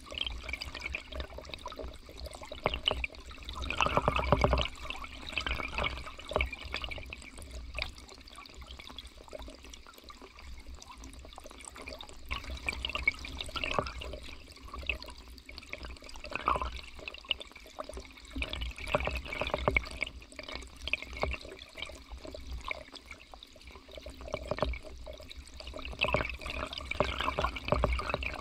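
Shallow river current heard through a camera held underwater: bubbling, gurgling water with dense small crackles and a low rumble. It swells louder about four seconds in and again near the end.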